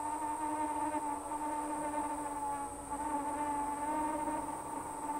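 iFlight Chimera 7-inch FPV quadcopter's motors and propellers buzzing in flight on a 4S battery: a steady whine that wavers slightly in pitch.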